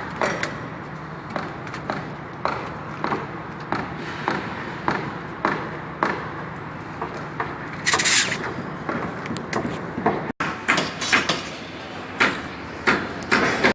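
A steady series of short knocks, about two a second. A brief louder clatter comes about eight seconds in, and the knocks turn more irregular and stronger toward the end.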